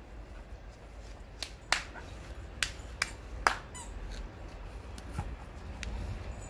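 Several sharp, irregularly spaced clicks, two of them louder, over a low steady rumble.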